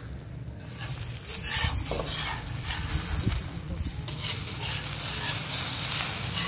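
Egg omelette sizzling on a flat iron griddle (tawa), with a metal spatula scraping against the griddle a few times as it is worked under the omelette to loosen it for turning.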